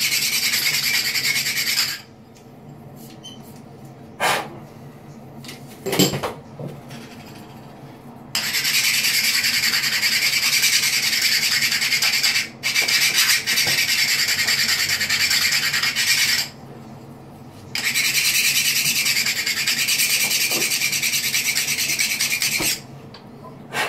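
The edge of a white tile being hand-filed on a grey abrasive block, a continuous gritty rasp as the edge is rounded over. The rasping stops about two seconds in, starts again around eight seconds in and runs with two short breaks until near the end, with a few sharp knocks in the pauses.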